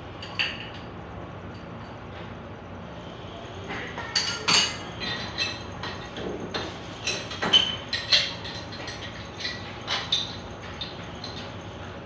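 Irregular clinks and light knocks of hard objects, bunched together in the middle of the stretch, each with a short bright ring.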